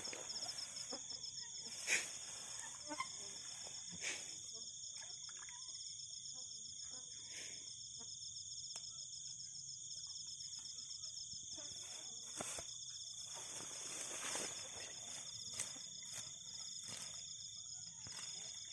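Night insects chirring steadily in high, fast-pulsing trills, with brief rustles and snaps of grass being handled here and there.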